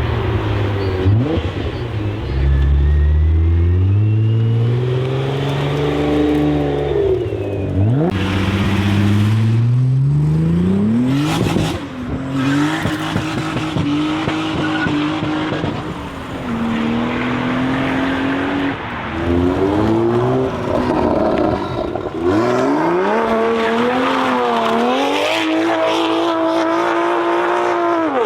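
A motor vehicle engine revving: its pitch climbs repeatedly as it accelerates, holds at a steady high pitch for a while, then wavers up and down.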